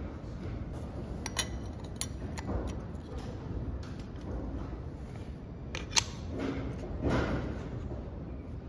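A few sharp metallic clicks and taps, the loudest about six seconds in, as a brass bush and a steel pressing drift are set into the bore of a tractor steering hub in a hydraulic shop press. Under them is a low steady workshop background noise.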